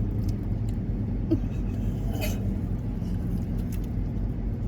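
Steady low rumble of a car running, heard from inside the cabin, with a couple of faint brief clicks.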